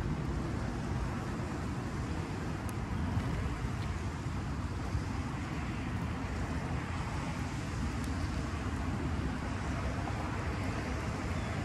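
Steady low background noise, with a couple of faint clicks.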